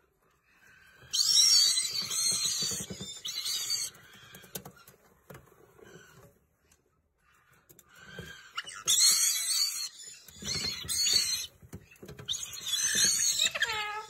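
Parrot chicks giving harsh, raspy begging calls in three bursts of a second or more each, with a rapid pulsing beneath.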